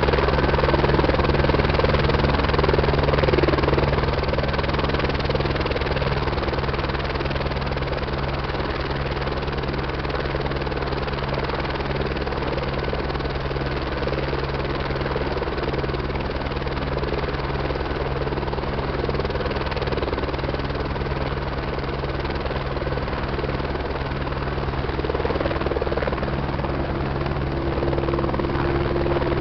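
Eurocopter B2 helicopter running on the ground, its turbine and main rotor turning steadily with a fast, even rotor beat. It eases off slightly a few seconds in and builds a little again near the end.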